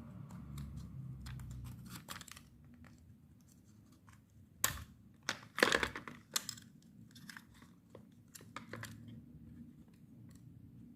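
Irregular plastic clicks and snaps as the clips holding a steering-wheel clock spring (spiral-cable reel) are pried loose and its plastic housing is handled, the sharpest few snaps around the middle.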